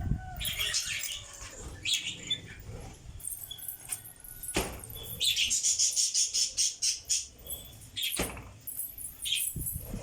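Pet lovebirds chirping, with a fast run of rapid, high-pitched chirps through the middle. Two sharp clicks stand out, one about halfway through and one near the end.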